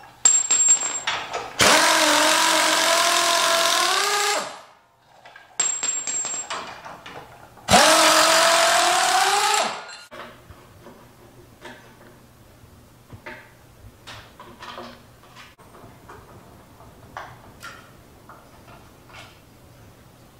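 Pneumatic impact wrench run in bursts on the Jeep's hitch bolts: short stuttering blips, then two long runs of about two to three seconds each, rising in pitch as the air motor spins up. After that come scattered light metal clinks and clanks as loosened parts are handled.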